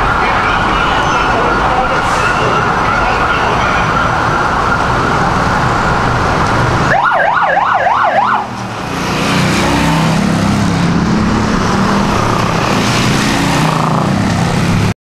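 Emergency vehicle sirens wailing over dense, loud noise. About seven seconds in, one siren switches to a fast up-and-down yelp for about a second and a half, and lower steady tones follow. The sound stops abruptly just before the end.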